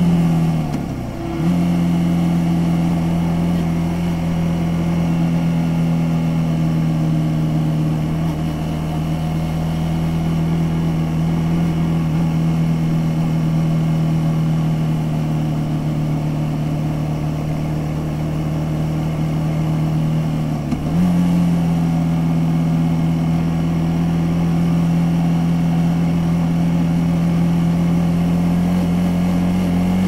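Suzuki Gixxer SF 250's single-cylinder engine pulling steadily under way, heard from the rider's seat. About a second in the note drops with a brief break, as at an upshift. Around two-thirds through there is another short break, after which the engine holds a slightly higher steady note.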